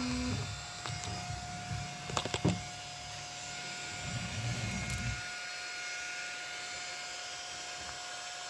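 Steady whirring hiss and hum of a laser engraver's fan, with low rumbling until about five seconds in and a quick cluster of sharp clicks about two seconds in. A short steady whine stops just after the start.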